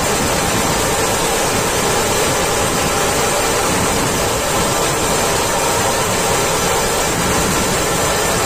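Massed Maharashtrian dhol drums of a dhol-tasha troupe beaten with sticks, so loud and dense on the phone microphone that it blurs into an unbroken wall of sound with no separate beats standing out.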